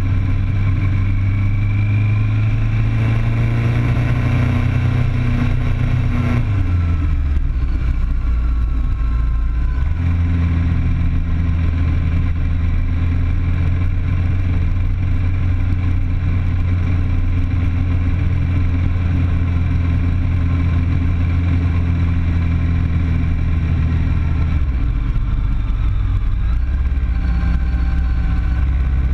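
Sport bike's inline-four engine under way, heard from a camera mounted on the bike. The engine note climbs over the first six seconds, falls away at about seven seconds in as the throttle eases, then holds steady before easing again near the end.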